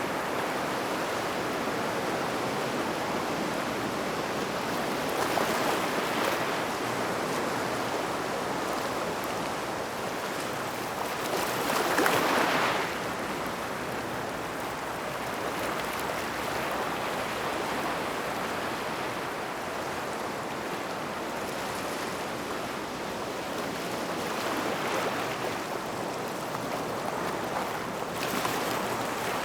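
Small waves washing onto a gravel shore near rocks, a continuous hiss of water over pebbles that swells with each wave; the strongest wave breaks about twelve seconds in, with others around six seconds and near the end.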